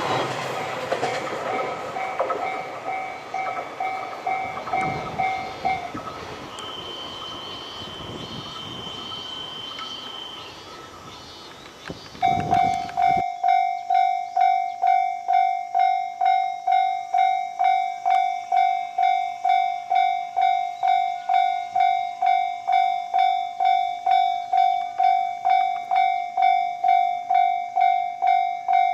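Japanese railway level-crossing alarm ringing in regular electronic dings. At first it rings over the last of a passing train and stops about six seconds in. About twelve seconds in it starts again, loud and even at about two and a half dings a second, the warning that another train is approaching.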